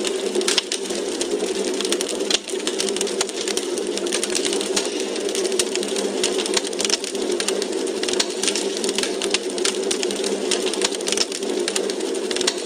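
Wood fire in a fireplace crackling: many quick, irregular pops and snaps over a steady low hiss from the burning logs.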